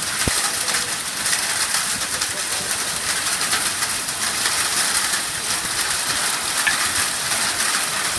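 Heavy wind-driven rain in a severe thunderstorm: a loud, steady hiss of pelting rain with no letup.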